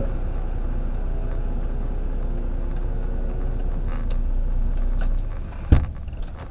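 Truck's diesel engine idling steadily, heard from inside the cab, then falling away about five seconds in, followed by a single sharp thump.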